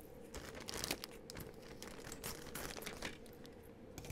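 Large clear plastic LEGO parts bag crinkling irregularly as hands rummage inside it for a piece.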